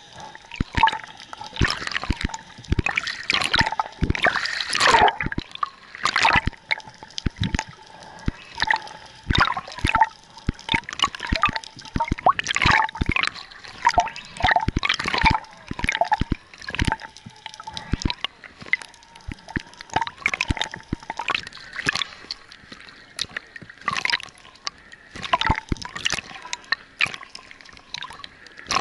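Water heard underwater through an action camera: irregular sharp clicks and pops with bubbling and sloshing, some clusters of clicks louder than the rest.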